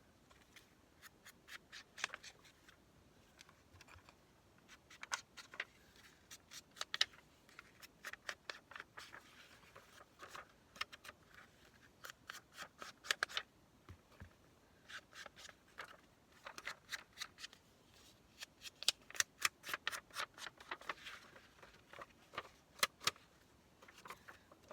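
Runs of quick, light clicks and taps of a hand tool working on paper, coming in clusters of several a second with short pauses between.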